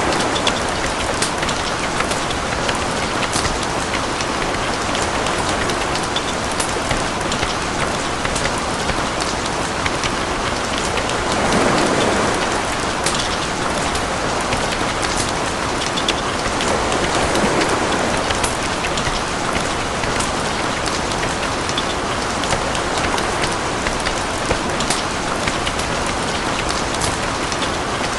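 Steady rain falling, with individual drops ticking sharply on a hard surface. The rush of the rain swells and eases a few times.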